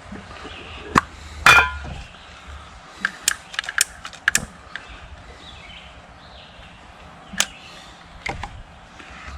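Irregular clicks and knocks of hard objects being handled and set down, with a louder clattering clink that rings briefly about one and a half seconds in and a quick run of light clicks a little later.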